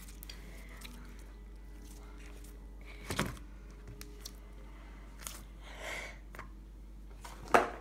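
Hands kneading and pressing slime into a clear plastic bowl, with a dull knock about three seconds in, a soft squish near six seconds and a sharp click near the end.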